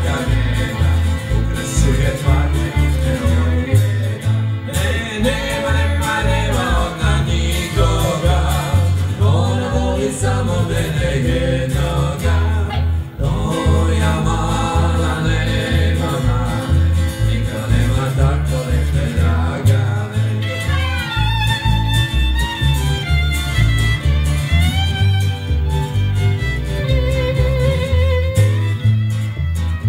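Live country-bluegrass band playing: a voice singing over guitar and a steady upright-bass beat. About two-thirds of the way through the singing stops and the fiddle takes the lead melody.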